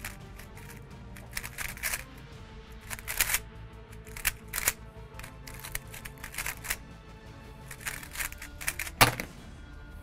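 A plastic 3x3 speedcube being turned fast in the hands: a quick, irregular run of clicks and clacks over quiet background music. A louder knock comes near the end, as the solve finishes.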